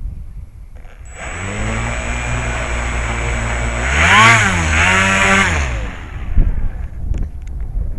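Electric brushless outrunner motor (NTM Prop Drive 35-30A 1400kv) spinning a 9x6 propeller on a Bixler 2 model plane, a whine that starts about a second in and holds steady. It surges up and back down twice in the middle as the throttle is pushed, then cuts off about six seconds in, leaving wind buffeting the microphone.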